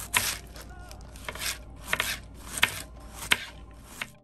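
Kitchen knife slicing through a cabbage head on a wooden chopping board, shredding it: a steady run of about six cuts, roughly one every two-thirds of a second, each a crisp crunching rasp through the leaves ending in a sharp tap of the blade on the board.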